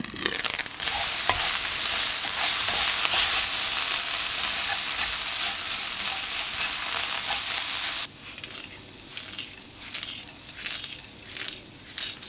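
Dried eggplant strips sizzling loudly in a hot nonstick frying pan as they are stirred. The sizzle stops abruptly about two-thirds of the way through, and softer scattered patters follow as sesame seeds and seasonings are sprinkled over the eggplant.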